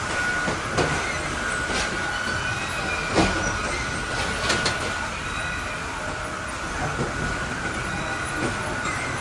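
Veneer-line wood processing machinery (log debarker or veneer peeling lathe) running steadily with a constant high whine, broken by a few sharp knocks and clatters, the loudest about three seconds in.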